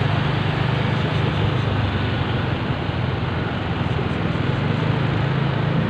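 Steady engine drone and road noise of a vehicle driving along a town street, heard from aboard the moving vehicle.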